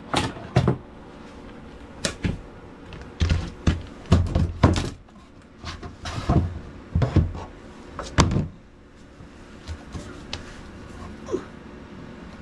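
Irregular knocks and thumps, coming in clusters for the first eight seconds or so, then a quieter stretch with a light tap or two.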